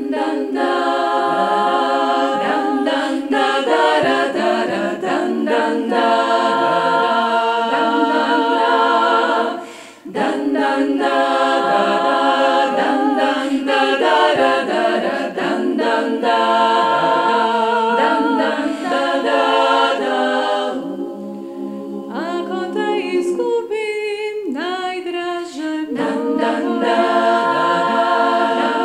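Women's klapa ensemble singing a cappella in close harmony, beginning right at the start. There is a brief breath-pause about ten seconds in. Later a single voice with sliding pitch leads over softer held chords before the full group returns.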